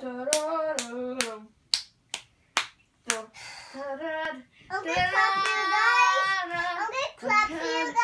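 A child singing, with hand claps keeping time, about two a second, for the first three seconds; from about the middle on, the singing carries on in long held notes without claps.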